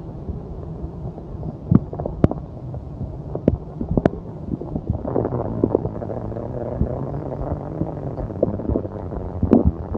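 Stomach growling: continuous low, irregular gurgles and rumbles with a few sharp clicks, turning into a steadier low hum with gurgles over it from about halfway.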